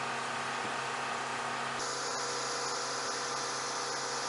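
Steady hum and hiss of running machinery on an airfield flight line. The high hiss grows brighter about two seconds in.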